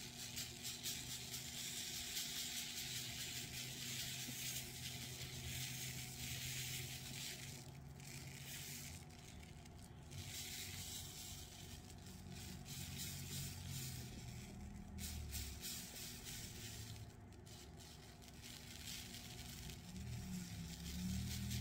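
Fine glitter pouring from a small bottle onto a tumbler and the paper beneath: a soft, fine-grained hiss that breaks off briefly a few times, over a low hum.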